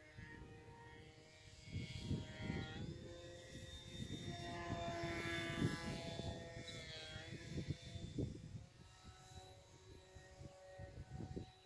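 A small RC plane's 2205-size brushless electric motor whines in flight. Its pitch steps up about three seconds in and drops again about seven seconds in as the throttle changes. Wind buffets the microphone in gusts.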